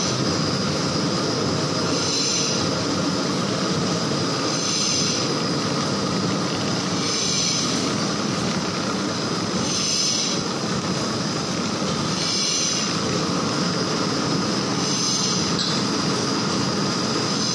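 Paper edge protector machine running steadily as the paper board is fed through its rollers, with a short high hiss recurring about every two and a half seconds.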